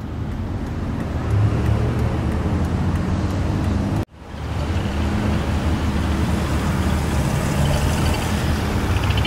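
Steady low hum of a car engine idling. It cuts out abruptly about four seconds in and fades back up a moment later.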